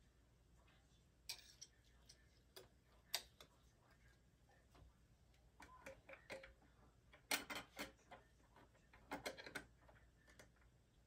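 Near silence broken by scattered small clicks and taps as hands handle parts at a sewing machine's needle and presser-foot area, with a quick run of clicks past the middle and another near the end.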